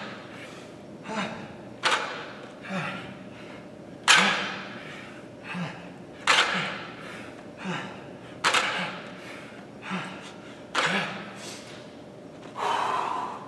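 A man breathing hard through dumbbell Romanian deadlift reps: a forceful exhale about every two seconds, with a shorter inhale between.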